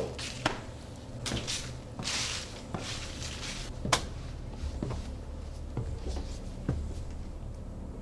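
Irregular knocks, clicks and rustles of someone walking over wooden floorboards and through doorways, with the sharpest click about four seconds in.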